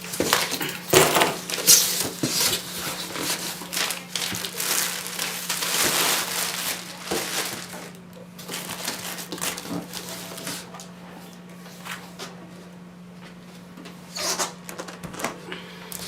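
Packaging crinkling and rustling as it is handled, dense for about the first half, then thinning to occasional taps and clicks.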